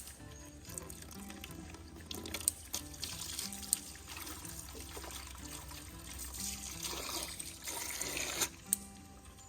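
Water running and splashing, with a few sharp clicks, over soft background music.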